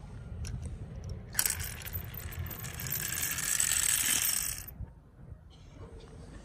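A rattling clatter of small hard objects, about three seconds long, building louder and then cutting off suddenly.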